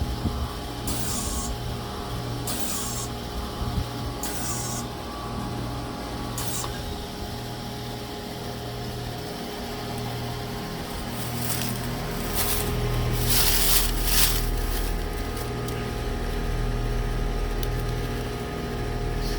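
Carrier 25HPB630A300 heat pump running with a steady, pulsing hum. Short bursts of hissing come about every second and a half early on and again later. A deep low drone starts about two-thirds of the way through. This is the abnormal noise the unit makes below freezing, getting longer and louder the colder it is, which the owner regards as a fault warranting replacement.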